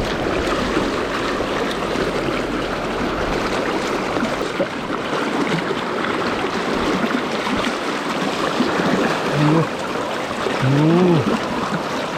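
Mountain river current rushing steadily, with a few short voice-like sounds about three-quarters of the way in.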